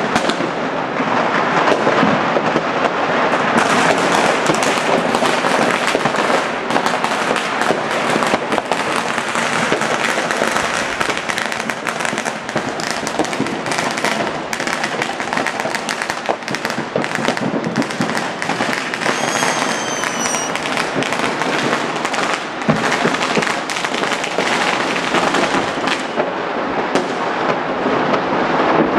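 Dense, continuous crackle and bangs of many fireworks and firecrackers going off at once, with a brief high whistle about two-thirds of the way in.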